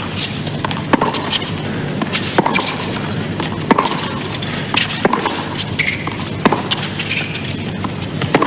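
Tennis rally: a ball struck back and forth by racquets, a sharp strike every second and a half or so, with lighter ticks of bounces and footsteps between, over a steady background hum.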